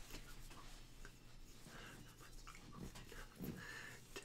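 Near silence: quiet room tone with a faint low hum and a few faint soft knocks.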